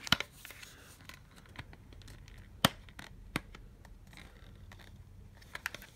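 Plastic parts of a solar garden light being handled and fitted together by hand: scattered small clicks and taps, the sharpest about two and a half seconds in, another a little later, and a quick few near the end.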